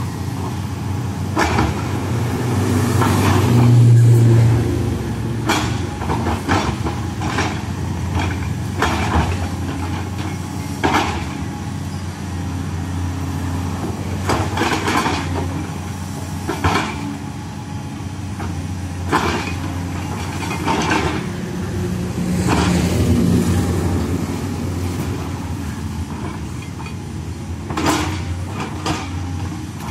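Diesel engine of a tracked hydraulic excavator running steadily, swelling louder as it works under load about four seconds in and again past the middle. Irregular clanks and knocks come through as the machine digs and dumps earth.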